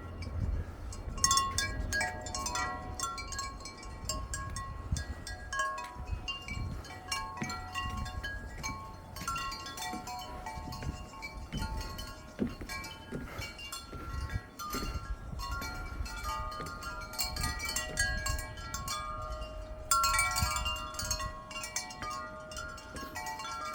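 Many metal wind chimes ringing together in the wind, with clear overlapping tones. The chiming swells into fuller flurries about a second in and again near the end, over a low rumble of wind on the microphone.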